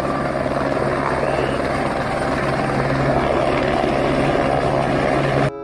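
Eurocopter AS350 Écureuil light single-engine helicopter hovering low, its main rotor and turbine running with a steady, fast blade chop. It cuts off abruptly near the end.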